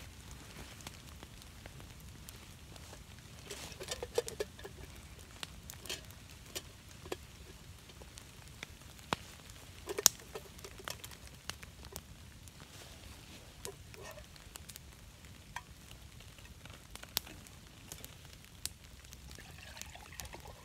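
Campfire of wet wood crackling, with sharp, irregular pops over a low steady hiss. A cup is handled beside it with a few soft knocks, and water begins pouring into it near the end.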